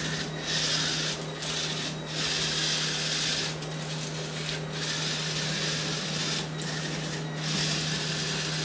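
LEGO BOOST Vernie robot's Move Hub motors driving its rubber tracks over a play mat, a grinding whir with a steady low hum under it. The whir comes in about eight short runs with brief pauses between, as the robot works through a programmed sequence of forward moves and 90-degree turns.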